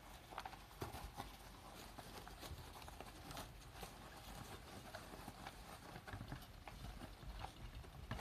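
Hamsters scurrying and rummaging through wood-shaving bedding: faint, irregular small clicks and rustles.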